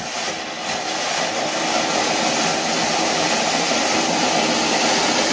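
A flowerpot (ground fountain) firework hissing steadily as it sprays sparks, growing louder over the first couple of seconds and then holding.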